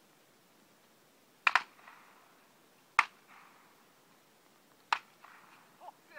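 Shotgun shots at a clay shoot: three sharp reports about one and a half to two seconds apart, the first followed at once by a second crack.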